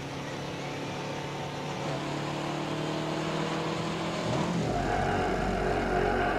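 Harley-Davidson XR-750 motorcycle engine running and building speed, with a rise in pitch about four and a half seconds in as it accelerates toward the jump ramp. It carries gearing the rider feared would leave him slow on takeoff.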